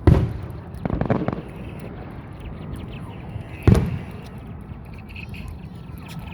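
Fireworks exploding: a loud bang right at the start, a few sharper cracks about a second in, and another loud bang a little before four seconds.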